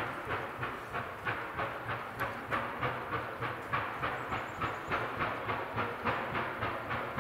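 Chinese-built 2-8-2 Mikado steam locomotive working under steam, its exhaust chuffing in a steady beat of about four a second over the rumble of the train.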